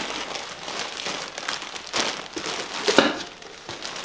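Clear plastic bags of enamel pins crinkling and rustling as they are handled and pulled out of a cardboard box, with a run of small crackles and one louder crackle about three seconds in.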